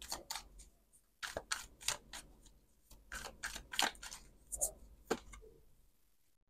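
A deck of tarot cards shuffled by hand and squared: a dozen or so soft, irregular clicks and snaps of card edges.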